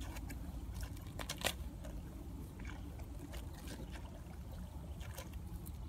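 A hoe chopping and scraping into wet mud and grass, with irregular wet strikes and squelches, the sharpest one about a second and a half in, over a steady low rumble.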